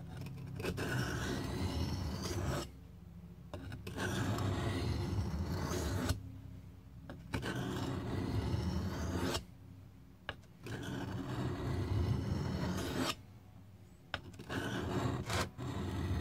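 Steel knife blade being sharpened on a whetstone: a scraping rub in bouts of about two seconds, with short pauses between them. It is the final honing on the highest-grit stone he uses.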